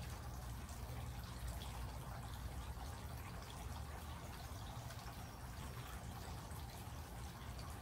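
Steady thunderstorm rain, with many small drips and water running off, over a steady low rumble.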